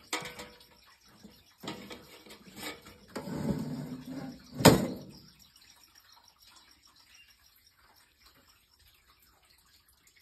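Rustling and light knocks, then one sharp knock nearly five seconds in, after which it goes quiet.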